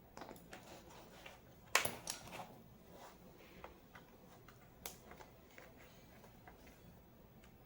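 Light scattered clicks and taps of a screwdriver taking the screws out of a mechanical keyboard's case, the sharpest knocks about two seconds in and near five seconds.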